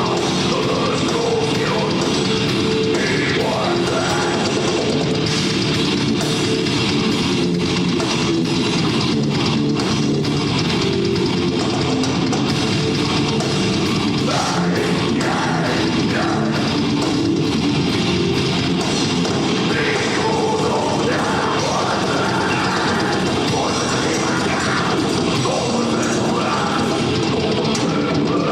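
Heavy metal band playing live: distorted electric guitars and a drum kit, loud and dense without a break.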